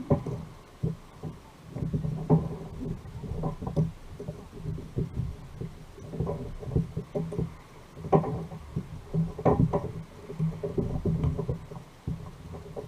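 Irregular low thumps and knocks on a fishing kayak's hull as it rocks in the water, over a steady low rumble.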